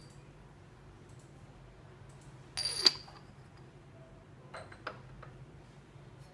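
Tử Sa purple clay toothpick holder clinking as it is handled and set down among clay pieces: one sharp clink with a short ring about two and a half seconds in, then two lighter taps near the five-second mark.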